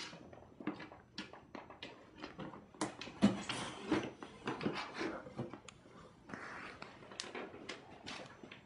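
Cardboard box knocking and rustling as a long-haired cat climbs into it: an irregular run of light knocks and scrapes, busiest about three to five seconds in.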